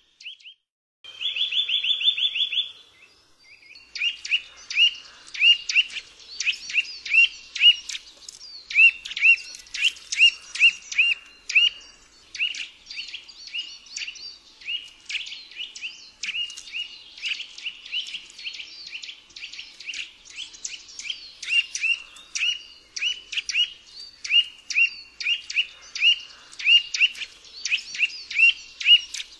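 Eurasian nuthatch calling: a short, fast trill about a second in, then from about four seconds a long run of short, sharp, repeated notes, several a second, with fainter higher-pitched chatter behind them.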